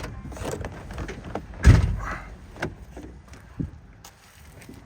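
A heavy thump about two seconds in, followed by a couple of lighter knocks.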